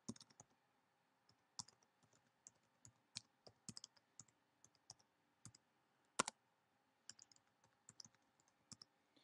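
Faint, irregular keystroke clicks from a computer keyboard as an email address and a password are typed, with one louder click about six seconds in.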